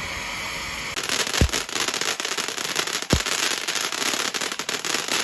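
Traffic light ground firework hissing, then about a second in breaking into dense crackling, with two louder bangs in among the crackle.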